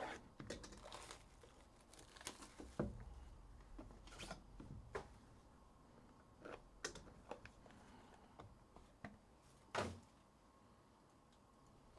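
Faint, scattered clicks and light rustling of small objects being handled, with a sharper knock about ten seconds in.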